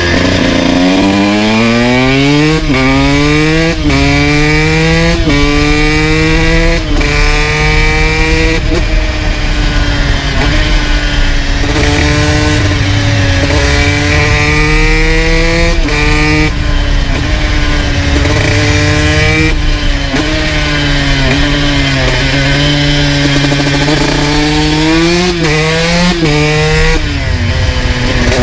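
2002 Honda CR125's single-cylinder two-stroke engine through an FMF full exhaust, accelerating hard and shifting up through the gears about five times in quick succession, each rise in pitch cut by a sharp drop at the shift. It then holds a fairly steady high pitch, and near the end shifts down with several quick drops and climbs in pitch.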